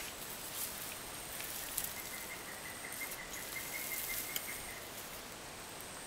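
Soft scrapes and rustles of a garden fork and hands working loose, mulched soil, with a few faint ticks, over a steady high hiss of insects and a thin high tone that comes and goes.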